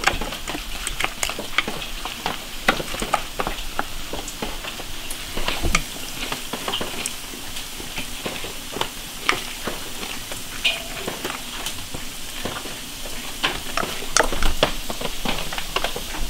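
Wooden chopsticks tossing a dressed shredded-vegetable salad, a steady wet rustle with frequent sharp clicks of the chopsticks against the stainless steel bowl and ceramic dish.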